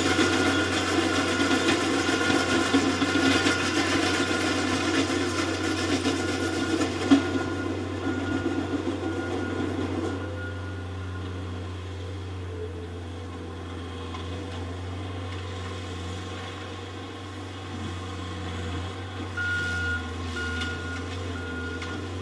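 Diesel engines of heavy equipment working across a graded field, running steadily and louder for the first ten seconds or so before easing off. A backup alarm beeps in a steady on-off pattern early on and again near the end.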